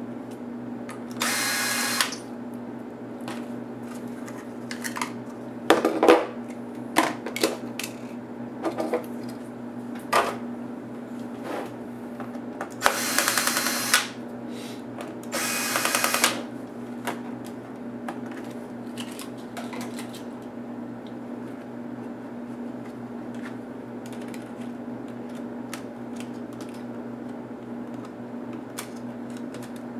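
Cordless drill/driver spinning out small screws from a laptop case in three short whirs of about a second each: one about a second in, then two close together halfway through. Between them come sharp clicks and knocks of parts being handled, over a steady low hum.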